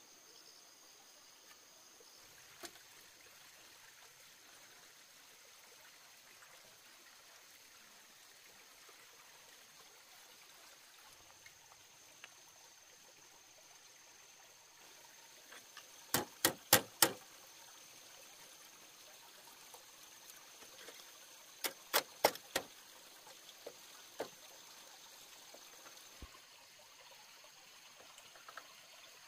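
Faint steady trickle of running water under a thin high-pitched tone. Two quick groups of about four sharp knocks come around the middle, a few seconds apart, with a few lighter clicks around them.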